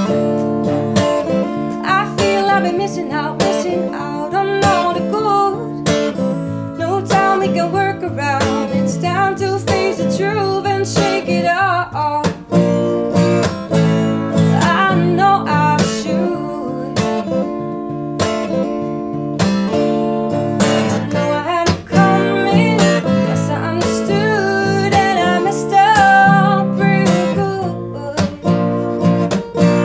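A woman singing to her own acoustic guitar, the guitar strummed and picked in a steady rhythm under her voice.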